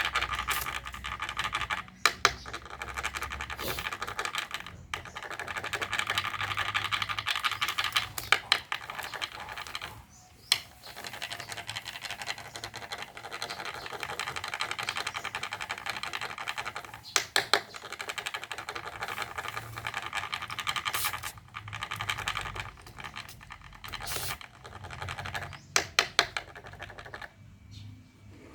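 Rapid, continuous scratching rasp that pauses briefly now and then, with sharp clicks scattered through it.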